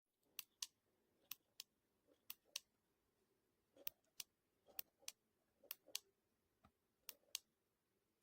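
Sharp, light clicks, mostly in pairs about a quarter second apart, with a pair roughly every second.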